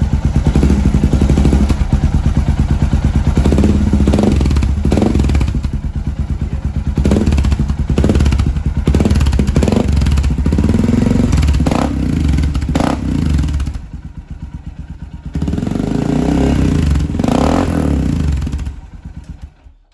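Suzuki DR650's single-cylinder engine running through an aftermarket exhaust, blipped repeatedly with short sharp rises in revs, dropping back to idle between them and for a stretch in the middle. The engine is switched off near the end.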